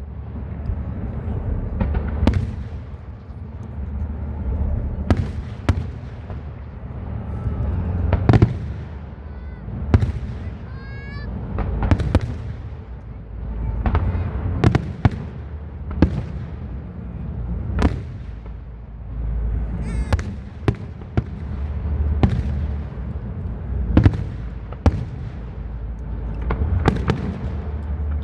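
Aerial fireworks shells bursting in a rapid series, a sharp bang every second or two, over a continuous low rumble from the display.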